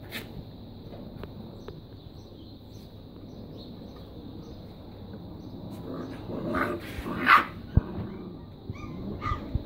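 Five-week-old puppies yipping and yelping as they play-fight, a burst of short high calls about six to seven and a half seconds in, the loudest near the middle of it, and a couple more near the end.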